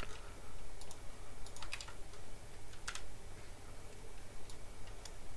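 Typing on a computer keyboard: scattered keystrokes, singly and in short clusters, over a low steady hum.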